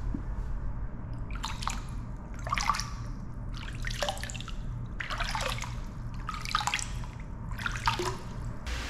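A hand splashing and swishing the water of a small tiled indoor pool: about six splashes roughly a second apart, over a steady low hum.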